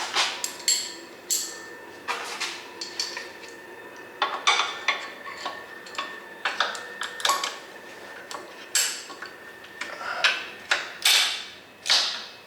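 Steel hand tools clinking and clanking against bolts: an irregular run of sharp metallic clicks and knocks as an Allen-head tool and wrench are worked on the differential mounting bolts.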